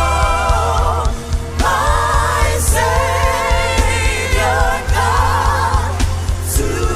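Gospel worship music: voices holding long, wavering notes with no clear words, in phrases a second or two long, over a steady bass and drum beat.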